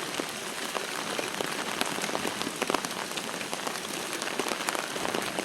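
Steady moderate rain falling on hard surfaces, a dense patter of drops with scattered sharper ticks close to the microphone.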